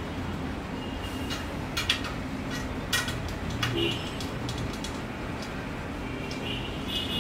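A few sharp metallic clicks and short pings from the steel spokes of a bicycle wheel being handled and adjusted in a truing stand, over a steady low background hum.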